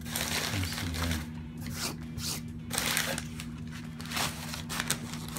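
Paper and plastic packaging rustling and crinkling in a run of irregular bursts as comic books are handled out of their box, over a steady low hum.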